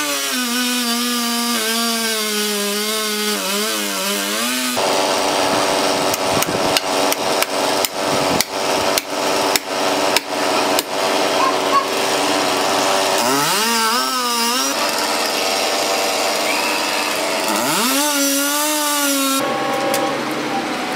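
Two-stroke chainsaw running under load in a tree trunk, then a rapid series of sharp blows on a felling wedge driven into the cut while the saw keeps running. Near the end the chainsaw revs up twice.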